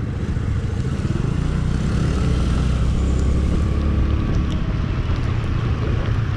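A small motorcycle engine runs steadily while riding along, with a low rumble of engine and wind on a helmet-mounted microphone.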